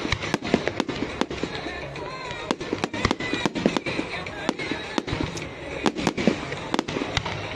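Fireworks exploding in quick, irregular succession: sharp bangs and crackles, several a second, over a steady rumble, with music playing underneath.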